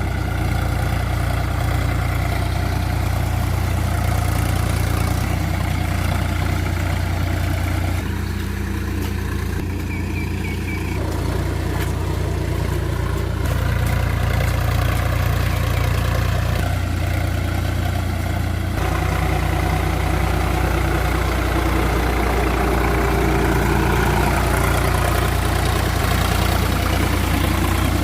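Sonalika DI-47 RX tractor's diesel engine running steadily, its tone changing abruptly a few times.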